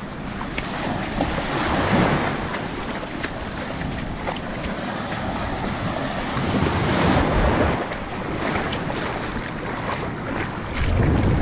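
Small waves washing in over shallow water and breaking against a bank of sargassum seaweed, rising and falling with each swell, with wind buffeting the microphone, heaviest near the end.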